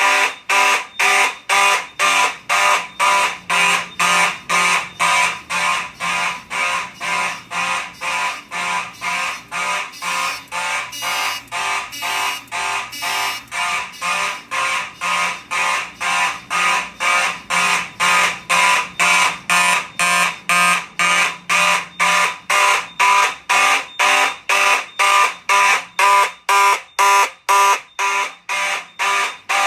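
Simplex fire alarm horns sounding in a pulsed pattern, about two blasts a second, the march-time evacuation signal.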